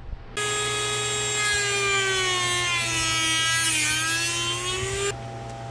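Dremel rotary tool cutting a slot in a black plastic panel: a high whine that starts suddenly just after the start, sags in pitch around the middle and climbs back, then cuts off about half a second before the end.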